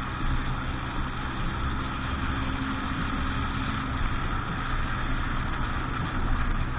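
Motorboat engine running steadily at a low, even speed, with a constant noisy hiss over it.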